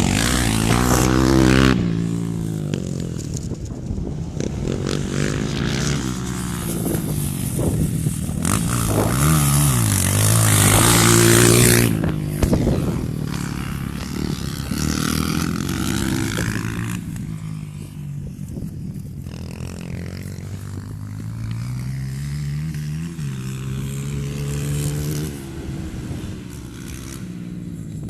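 Single-cylinder four-stroke dirt bike engine revving up and easing off again and again as the bike is ridden, with a rushing noise that is loudest around ten seconds in.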